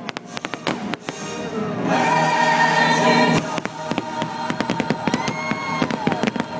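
Fireworks popping and crackling in rapid bursts over choral show music with sustained sung notes. The pops come thicker in the second half as the music dips.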